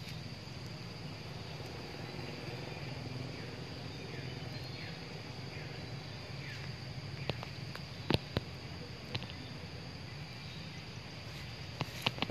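Woodland ambience: a steady high insect drone over a low rumble, with faint short falling chirps. A few sharp clicks come a little past the middle and again near the end.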